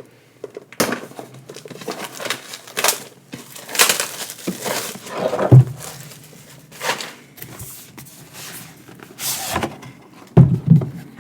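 A cardboard Elite Trainer Box being unwrapped and opened by hand: irregular crinkles and rustles of plastic wrapping, with scrapes and light knocks of the cardboard lid.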